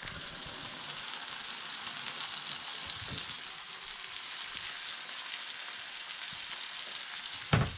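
Sirloin steaks sizzling on the preheated grill plate of a WMF Lono Quadro electric table grill, a steady frying hiss. A single short knock near the end.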